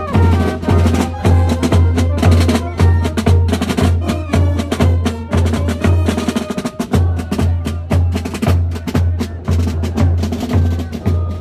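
A marching street band plays: bass drums pound about twice a second under rattling snare drums, with trumpets, saxophones and a sousaphone sounding the tune. The bass drum beat breaks off briefly about six seconds in, then picks up again.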